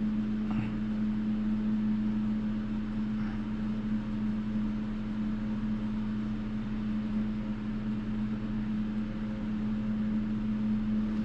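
Steady low hum of a small electric motor running at one even pitch, with no change.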